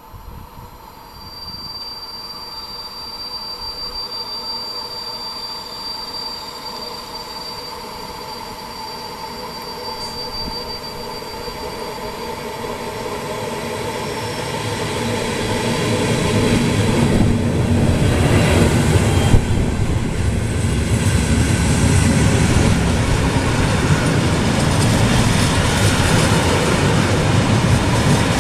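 Electric freight train approaching and passing close by. It starts as a faint thin high whine, then grows steadily louder from about fifteen seconds in into heavy rumbling as the locomotive arrives. Near the end the flat wagons clatter past on the rails.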